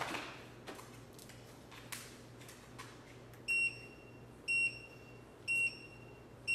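Portable walking-pad treadmill's control unit beeping four times, short high beeps about a second apart in the second half, over a low steady hum and a few light clicks.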